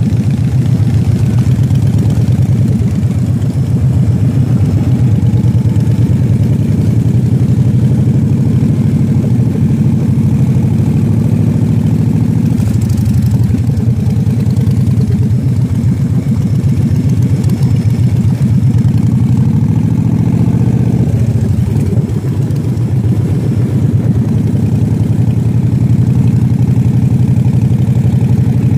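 Motorcycle engine running at low speed, heard from the rider's seat: a loud, steady, low engine note, wavering briefly about two-thirds of the way through.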